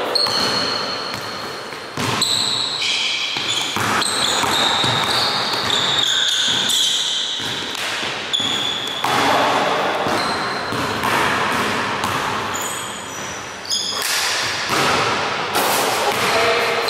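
Basketball bouncing on a hardwood gym floor during play, a string of sharp thumps, with short high-pitched sneaker squeaks on the court.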